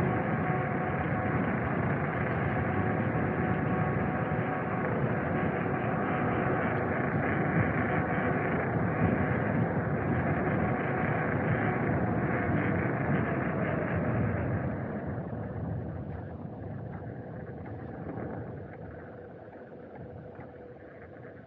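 Electric scooter on the move: steady rushing wind and road rumble with a faint steady whine, easing off about two-thirds of the way through as the scooter slows.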